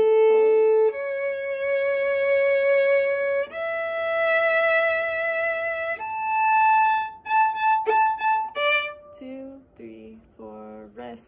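Solo violin bowing long held notes that step up in pitch, starting on the open A string, then shorter notes about seven seconds in, and softer, lower playing near the end.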